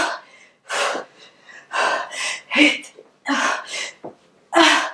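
A woman's heavy, gasping breaths, short and irregular, one or two a second, a few with a brief voiced catch: out of breath from hard exercise.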